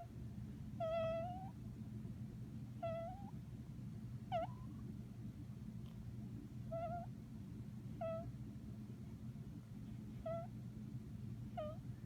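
Newborn baby snoring in her sleep: a short, high-pitched squeak that curls upward at its end, seven times, roughly every one and a half to two seconds.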